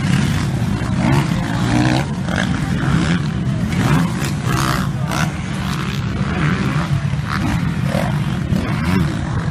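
Several motocross bikes racing past one after another, their engines revving hard and easing off in quick, overlapping surges.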